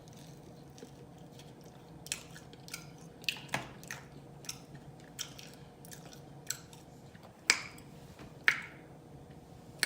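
A person chewing pizza crust close to the microphone, with a string of short wet mouth clicks and lip smacks, the two loudest near the end.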